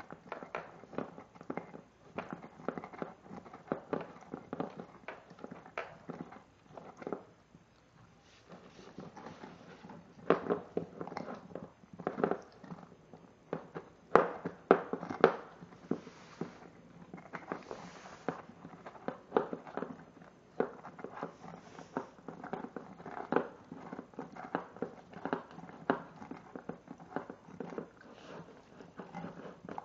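Rottweiler puppy gnawing a knuckle bone: a continuous run of sharp clicks and crunches of teeth on bone, with a short lull about eight seconds in.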